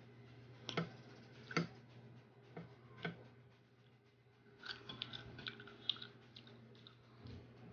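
Faint crisp crunching of firm green Indian mango being bitten and chewed: a few single sharp crunches, then a quick run of crackly crunches about halfway through, over a steady low hum.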